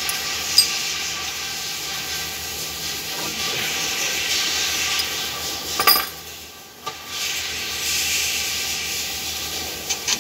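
Electric fan running with a steady whirring hiss and a faint hum. There is a sharp click about half a second in, and another just before six seconds, after which the sound briefly drops away and then picks up again.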